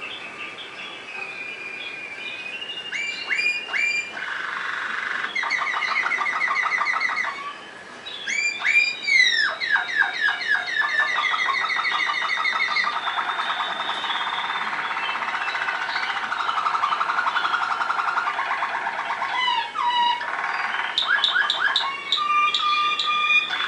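Waterslager (Malinois) song canary singing a continuous string of tours: rapid rolling trills, falling whistled glides and long bubbling passages, each held for a second or a few before switching to the next, with a short break partway through.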